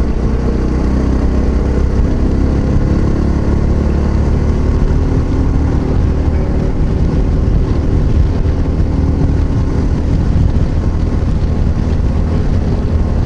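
Yamaha XT660Z Ténéré's single-cylinder engine running at steady highway cruising speed, its pitch rising slightly in the first few seconds, with heavy wind rushing over the rider's microphone.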